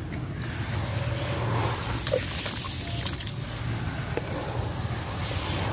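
Hands sloshing and squishing through a basin of gritty, muddy water, pressing into the soft sand slurry at the bottom, with small wet clicks here and there, over a steady low hum.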